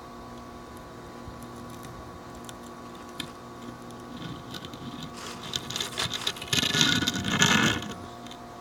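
Rustling and scraping noise that builds about halfway through and is loudest for a second or two near the end, over a steady hum.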